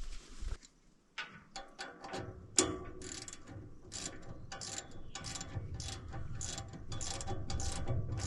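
Ratchet wrench being worked on a bolt of a wood chipper's shear-bolt fitting: quick, repeated ratcheting clicks, about two to three strokes a second, starting about two seconds in, over a low hum that grows toward the end.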